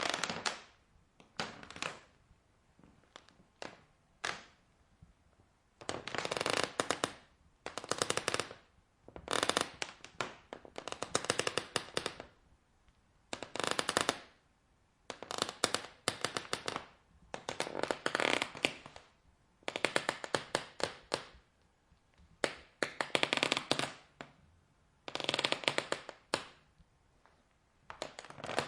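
Wood creaking in a run of separate creaks, each about a second long and made of rapid clicking, with a few short single creaks and ticks in the first few seconds.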